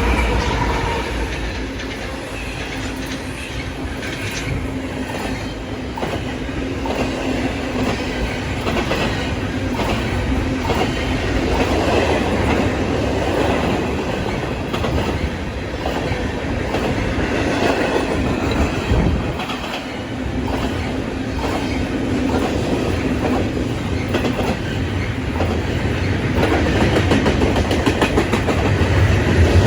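A train rolling past, its wheels clicking over the rail joints over a steady low hum.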